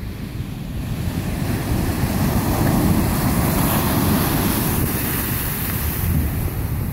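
Small ocean waves breaking and washing up over a pebble beach, the hiss of the wash swelling in the middle and easing toward the end, with wind rumbling on the microphone.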